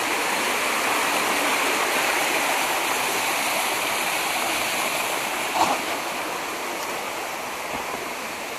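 Steady rush of water flowing through a rocky creek, easing slightly toward the end, with one short knock a little past halfway.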